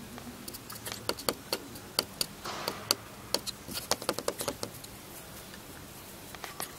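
Puppy chewing and tearing at grass: a run of irregular sharp clicks and crunches, with a short scrape in the middle, stopping about four and a half seconds in.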